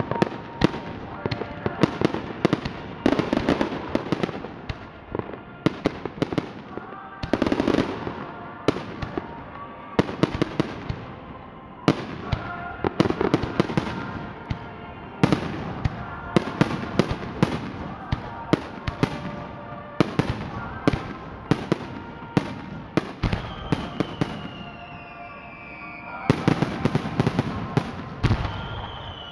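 Fireworks display: aerial shells bursting in rapid volleys, each burst followed by crackling, with brief lulls between volleys.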